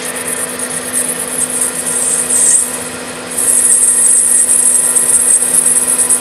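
Metal lathe running with a steady motor hum while a boring tool cuts inside a spinning brass-coloured ring, the cut giving a high-pitched hiss. The hiss drops away about two and a half seconds in and comes back louder about a second later.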